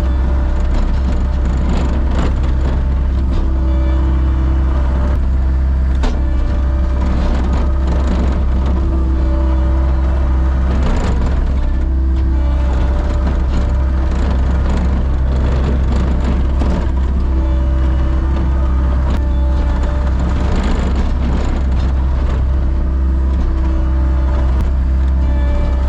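Diesel engine of a wheel loader running steadily with a strong low hum, with occasional knocks and clanks of the machine working.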